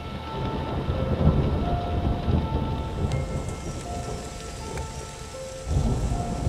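Rain falling with low rumbles of thunder, the rumble swelling again near the end; a few faint drip ticks sound over the hiss.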